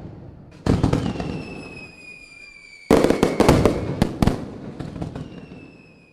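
Loud sudden bangs, each fading into crackling, with a high whistling tone that slides slowly down in pitch through the middle.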